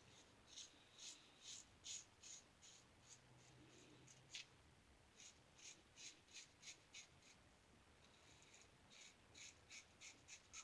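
Single-edge safety razor (1901 New Gem with a Gem stainless blade) scraping through lathered stubble in short, faint strokes, about two a second, in three runs with brief pauses between passes.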